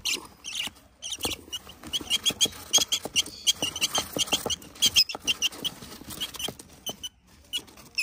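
Young lovebird chicks giving rapid, high, squeaky chirps, several a second, in short clusters with brief pauses.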